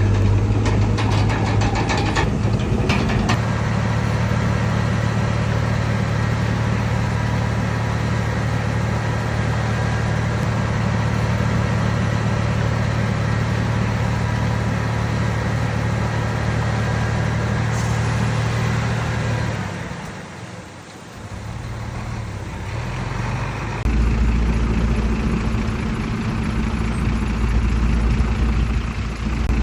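Heavy diesel engine of earthmoving machinery running steadily, with a rapid clatter in the first few seconds. About twenty seconds in it drops away briefly, then returns deeper and louder.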